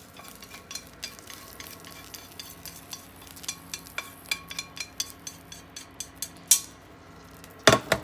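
Chopsticks scraping and tapping against a frying pan as stir-fried sakura shrimp and scallions are pushed out into a stainless steel bowl: a run of metallic clicks and clinks, with a few louder knocks of pan on bowl near the end. A faint steady hum runs underneath.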